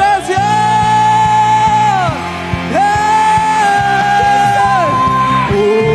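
Live worship band playing: a drum beat and steady bass under long held high notes that slide down at their ends.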